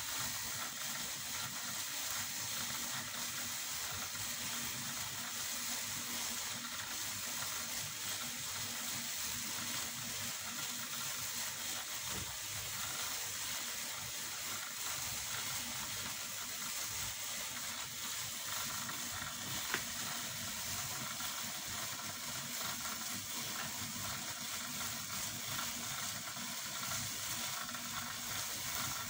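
A steady hiss of background noise, with one sharp click about twenty seconds in.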